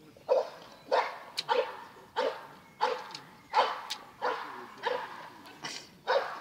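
A dog barking repeatedly in a steady series, about ten barks at roughly one and a half a second.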